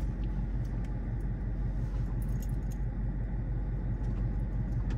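Steady low rumble of a car heard from inside the cabin, with a few faint light clicks over it.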